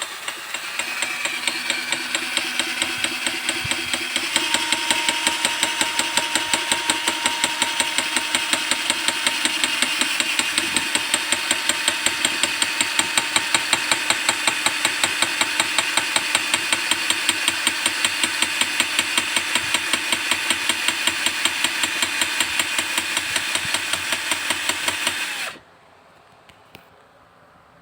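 Miniature model power hammer running, its motor whining under a rapid, even train of hammer blows at about five a second that grow louder a few seconds in. It stops suddenly near the end.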